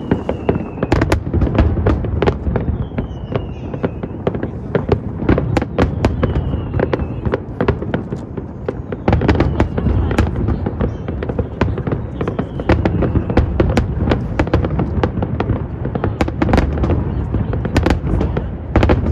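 Aerial fireworks display going off: a dense, continuous barrage of sharp bangs and crackling pops over a steady low rumble of booming shells.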